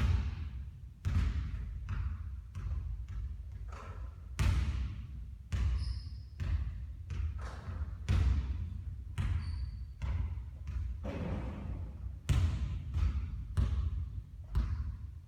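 Basketballs bouncing on a hard court, an irregular string of sharp bounces about once a second, with two brief high squeaks.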